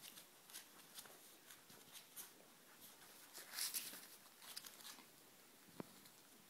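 Faint rustling and light scratching of a Cardigan Welsh Corgi puppy's paws crawling over a blanket and newspaper, with a denser burst of rustling a little past halfway and a soft knock near the end.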